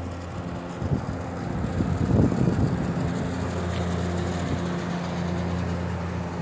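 A steady low mechanical hum, like a motor or engine running. About a second in, a rough rumbling noise rises over it for a couple of seconds, then eases back to the hum.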